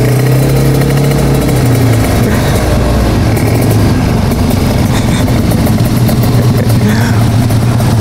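Kawasaki Ninja RR 150 two-stroke single-cylinder motorcycle engine running loudly at a steady, even pitch.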